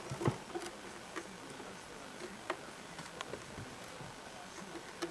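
Scattered light taps and clicks at irregular intervals, with a sharper knock about a quarter-second in: small movements in a quiet room, with no voices.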